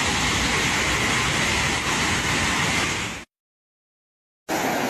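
Rushing floodwater pouring fast through a swollen gully, a steady noise that cuts off dead about three seconds in. After about a second of silence, more rushing floodwater starts near the end.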